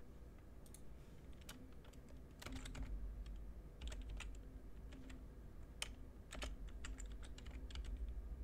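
Typing on a computer keyboard: irregular clicks of keys, coming faster and louder from about two and a half seconds in.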